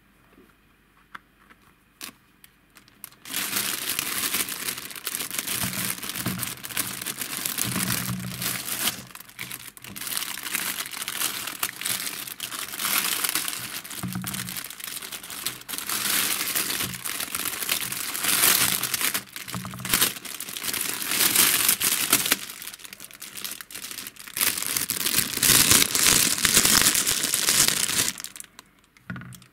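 Thin clear plastic bag crinkling loudly as hands rummage in it and pull out foam stress balls, starting about three seconds in and stopping shortly before the end. A few faint taps before it.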